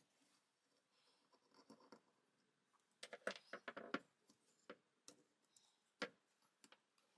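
Faint scrapes and clicks of a vintage Black & Decker D520 drill's trigger switch and handle parts being handled and pried apart by hand. A quick flurry of clicks comes about three seconds in, and one sharp click near six seconds.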